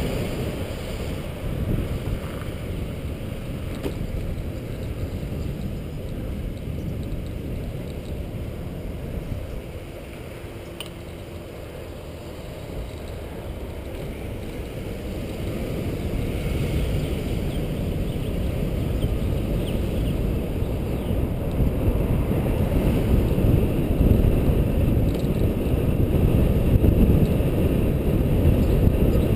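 Wind buffeting the microphone of a camera on a moving bicycle, a steady low rumble mixed with road noise. It eases off about ten seconds in, then grows louder through the second half.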